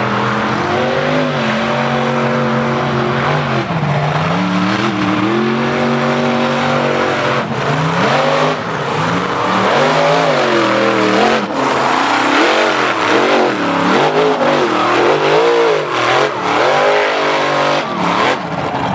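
Mega mud truck's engine running hard at high revs through a mud pit. It holds fairly steady at first with one brief dip, then from about eight seconds in swings rapidly up and down as the throttle is worked while the big tractor tires churn and catch air off the ramps.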